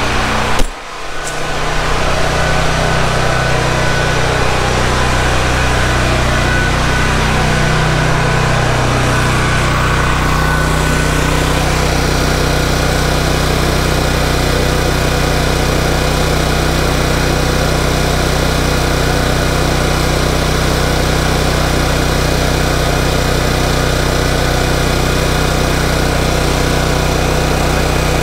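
Portable gasoline backup generator running steadily under load. A short sharp knock about a second in is the loudest moment.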